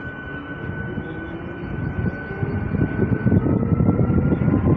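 Electric local train pulling away from a station, heard from its doorway: a high electric whine with a few tones that begin to rise in pitch, over a rumble of wheels on rails and wind that grows louder as the train picks up speed.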